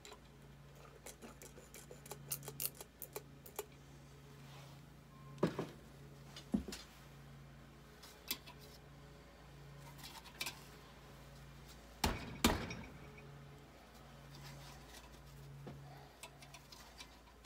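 Scattered light metal clicks and taps of hand tools and parts being handled while working at a stuck valve in a Kohler K241 engine block, with sharper knocks about five and a half and six and a half seconds in and a pair about twelve seconds in. A low hum comes and goes underneath.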